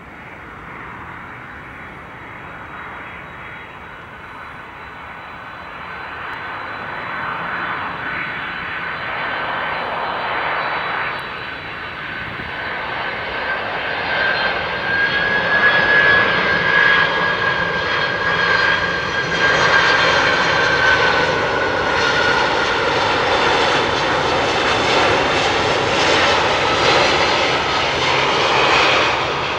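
Four-engined jet airliner arriving, its jet engines growing steadily louder as it approaches and staying loud through the second half. A high engine whine sits over the engine noise and sags slightly in pitch around two-thirds of the way through as the aircraft passes.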